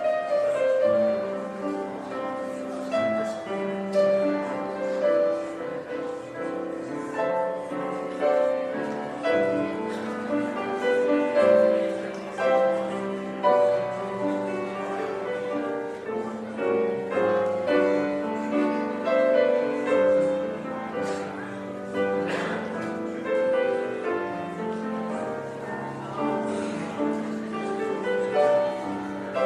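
Piano music, a piano playing a continuous piece.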